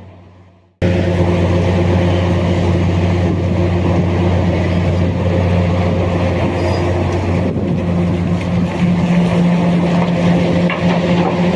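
Large diesel engine of heavy mining equipment running at a steady, even speed, starting abruptly just under a second in.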